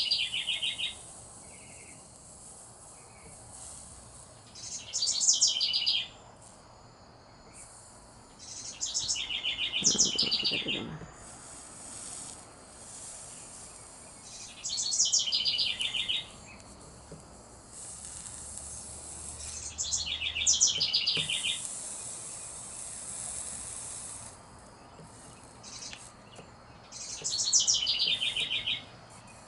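A songbird repeating a short, high trill that steps down in pitch, five times about every five seconds.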